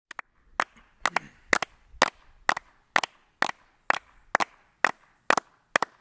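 Two people clapping their hands in a steady beat, about two claps a second, with a few doubled claps, counting in a song.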